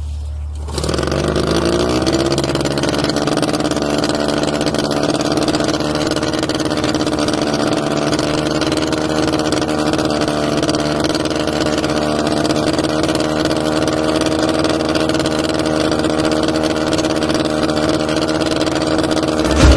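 Small outboard motor on a sailboat's stern starting up about a second in, its pitch rising for a moment as it catches, then running steadily at idle.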